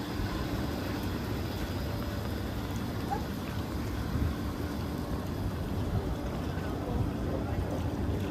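Outdoor hot tub's jets running: steady bubbling and churning water with a low pump hum.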